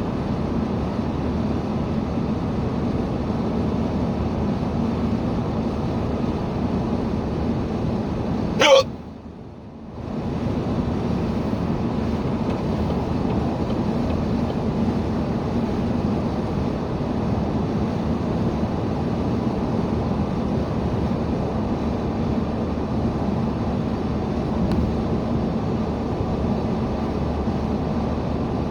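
Steady in-car road and engine noise of a moving car, with one sharp hiccup about a third of the way in, after which the background drops for about a second before returning.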